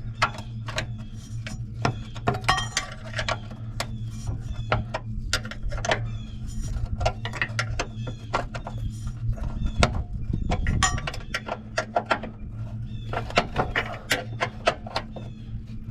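A 9/16 combination wrench working a rear-bumper bolt on a Range Rover: irregular metallic clicks and knocks as the wrench is repositioned and turned, over a steady low hum.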